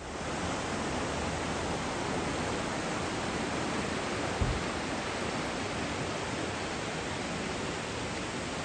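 Rushing water of a rocky mountain river pouring over rapids, a steady even rush, with one brief low bump about halfway through.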